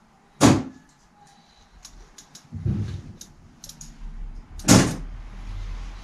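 Workbench handling noise from a child's bicycle wheel and tools: two loud knocks about four seconds apart, with a duller thump and a few light clicks between them.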